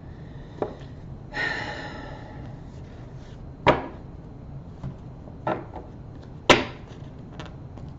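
A few sharp, separate knocks on a wooden surface, the loudest about six and a half seconds in, with a brief rustle about a second and a half in.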